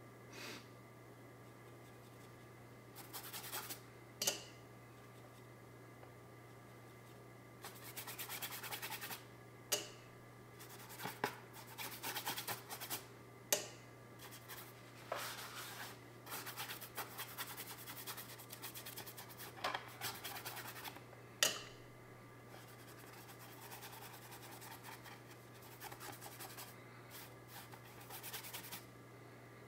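Bristle brush scrubbing oil paint onto a textured canvas in short scratchy bursts, with a few sharp taps that stand out as the loudest sounds. A steady low hum runs underneath.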